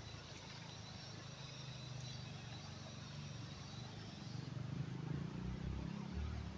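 Shallow river water flowing and rushing over rocks, with low wind buffeting on the microphone that grows stronger near the end. A faint thin high tone sits above it and stops about halfway through.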